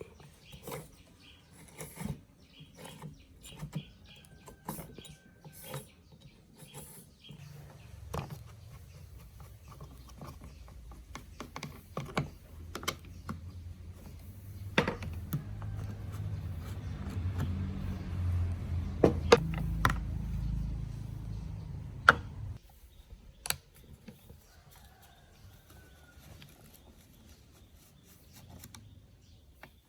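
Scattered clicks and knocks of tools and small parts being handled, with a low rumble that builds from about a quarter of the way in and cuts off suddenly about three quarters through.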